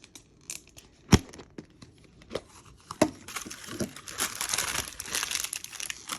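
A Mini Brands plastic capsule being opened by hand: a few sharp plastic clicks and knocks, the loudest about a second in. From about three seconds in, steady crinkling and tearing of the small plastic bags packed inside.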